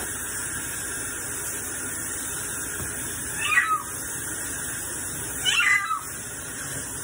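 Wet house cat meowing loudly twice, about two seconds apart, each cry sliding down in pitch, in distress at being rinsed. A kitchen faucet runs steadily over him.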